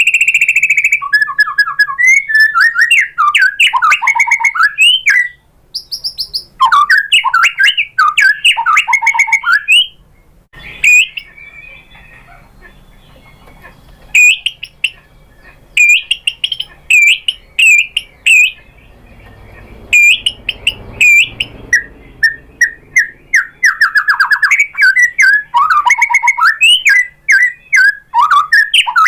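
White-rumped shama singing: loud, fast, varied whistled phrases broken by short pauses, with a run of short repeated rising notes about halfway through.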